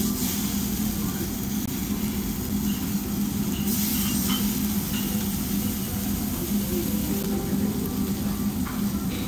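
Thin slices of raw wagyu beef sizzling on a gas-fired yakiniku grill plate. The hiss swells briefly about four seconds in as a second slice is laid down. A steady low hum runs underneath.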